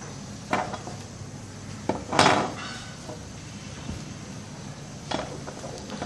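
Handling noise from a refrigerator thermostat and its wire leads being worked by hand on a bench: four short clinks and knocks of small metal parts, the loudest a little over two seconds in.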